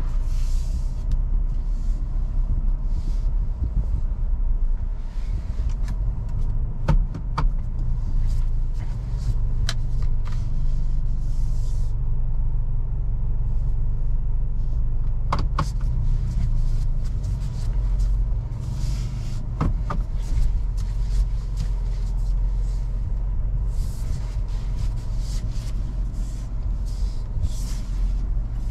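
Toyota Fortuner's 2.7-litre naturally aspirated petrol four-cylinder and road noise while driving: a steady low rumble, with a few brief sharp knocks from the car going over the road.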